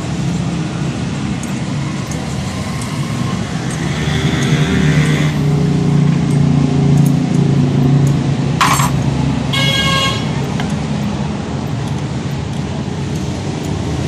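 Small single-cylinder four-stroke motorcycle engine of a CD70-type 70cc bike running steadily with its tappets freshly set, getting louder for a few seconds midway. A sharp click comes just before a short horn toot about ten seconds in.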